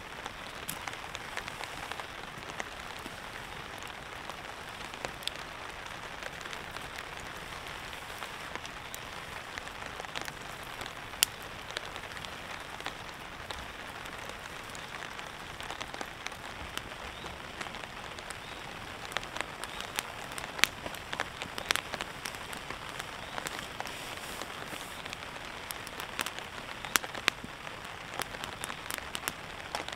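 Steady rain falling on a tarp, a constant patter with scattered sharper ticks of heavier drops, more of them in the second half.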